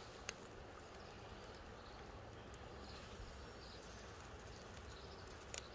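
Faint, steady outdoor background noise, with a sharp click just after the start and a couple more near the end.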